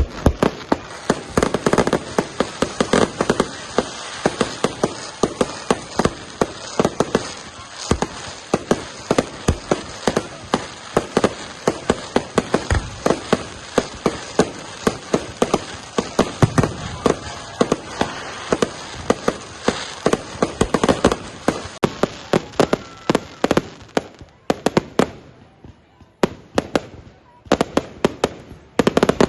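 Fireworks exploding: a dense, rapid run of bangs over continuous crackling. The bangs thin out for a few seconds about 25 seconds in, then pick up again near the end.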